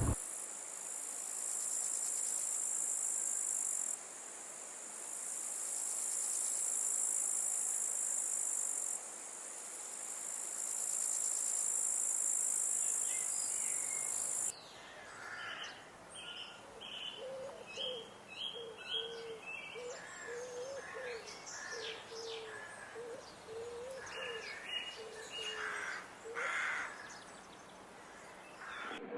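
Cicadas buzzing in a steady, very high-pitched drone that stops abruptly about halfway through. Then a bird calls over and over: short low notes alternating with quick higher chirps.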